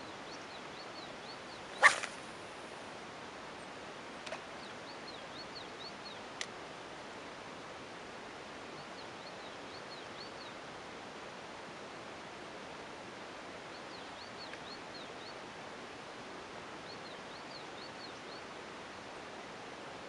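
A spinning rod whipped through a cast about two seconds in, a sharp swish with a brief hiss of line after it, then a couple of small ticks. Faint high bird chirps come in short runs over a steady outdoor hiss.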